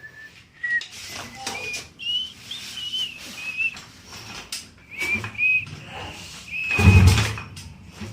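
A string of short, high whistled notes, some rising slightly in pitch, spaced irregularly. About seven seconds in comes a brief, loud, low-pitched burst.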